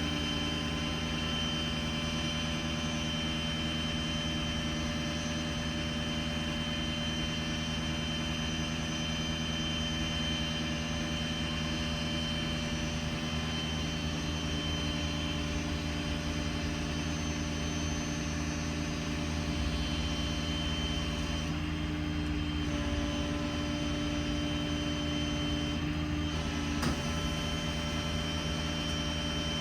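Truck's 6.7 Power Stroke diesel running steadily to drive the hydraulic pump while the crane boom telescopes out, a constant drone with a steady whine. The tone shifts slightly about two-thirds of the way through, and there is a short click near the end.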